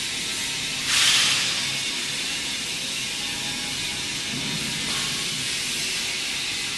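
Steady hiss of workshop background noise, with a short, louder hiss about a second in that fades within half a second, and a fainter one near five seconds.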